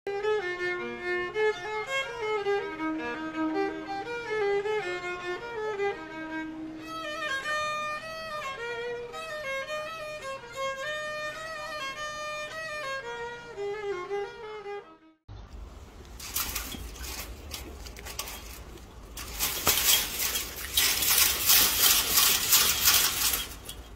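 Solo violin playing a slow melody of held notes. About fifteen seconds in it cuts off, and loud, rough rushing noise with no tune follows.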